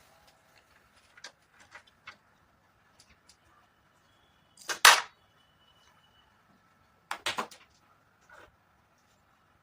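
Handling noise: scattered light clicks and taps, with two louder sharp clattering knocks, one just under five seconds in and another a little after seven seconds.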